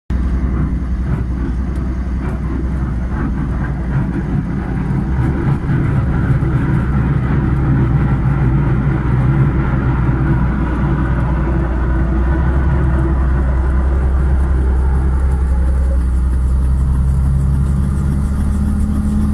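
Robinson R44 Raven I helicopter's piston engine and rotor running steadily on the ground, heard from inside the cabin, a low drone that grows louder about six seconds in.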